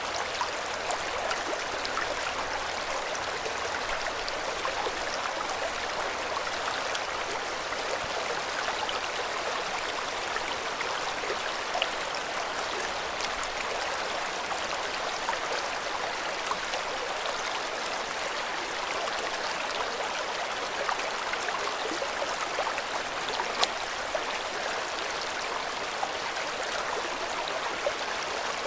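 River water flowing steadily over rocks, a continuous rushing and babbling with small splashes.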